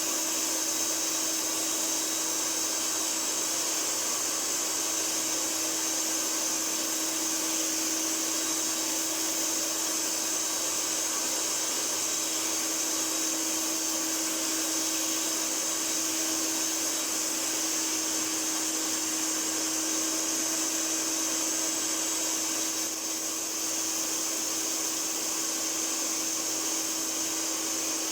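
Hoover Wet and Dry Powervac S4266 vacuum cleaner from 1982 running steadily, its motor giving a constant whine with a high hiss of rushing air.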